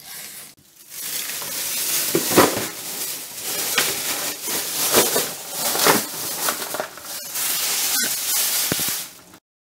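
Thin plastic bags crinkling and rustling as they are handled and pulled open, with scattered sharp crackles. The sound cuts off suddenly near the end.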